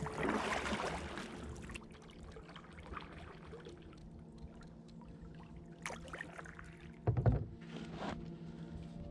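Kayak paddle strokes dipping and splashing in river water, a few separate strokes, the loudest about seven seconds in. Soft background music with long held notes plays underneath.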